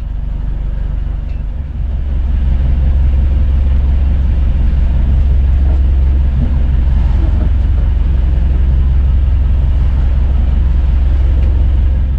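Outrigger fishing boat's engine running steadily, a loud low rumble that grows louder about two seconds in.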